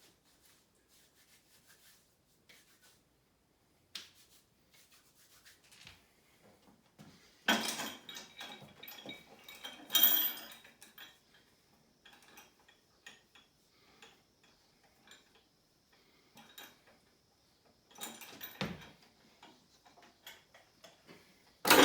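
Loaded metal weight plates on an anvil grip-lift implement clanking and rattling as it is handled and lifted, with two loud clatters partway through and one loud, sharp metal clank at the very end.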